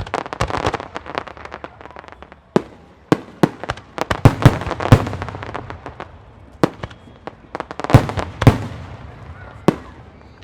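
Aerial fireworks display: a rapid string of sharp shell bursts with crackling between them. The densest, loudest bursts come near the start, around four to five seconds in, and again around eight seconds in.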